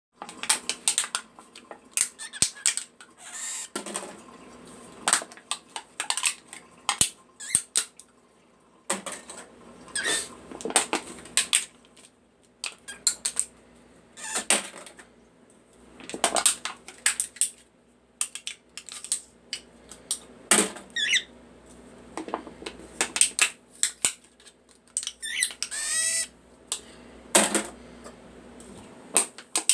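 White-faced cockatiel making scattered bursts of short squeaky chirps and clicks, with a longer wavering call near the end.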